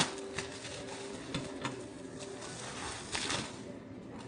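Packaging being handled during an unboxing: a sharp click at the start, a few light taps, and a short rustle about three seconds in.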